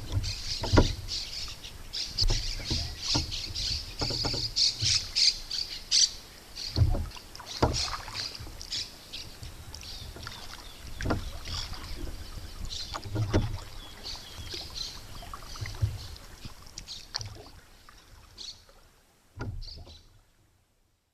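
A small boat paddled through water, with irregular knocks from the strokes, while birds chirp and squawk continuously. It fades out near the end.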